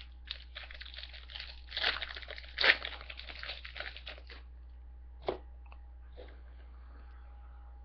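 Foil wrapper of a trading-card pack being torn open and crinkled, with a few sharper rips in the first half, then a single click.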